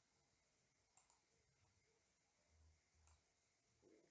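Near silence with a few faint computer mouse clicks: a quick double click about a second in and a single click about three seconds in.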